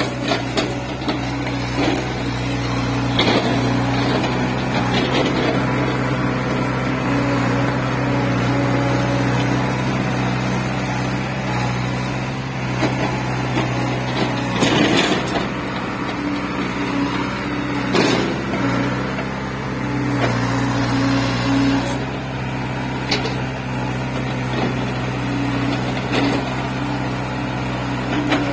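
Diesel engine of a tracked excavator running steadily under load while it digs, with scattered knocks and crackles from the bucket working soil and brush, and a louder burst of noise about halfway through.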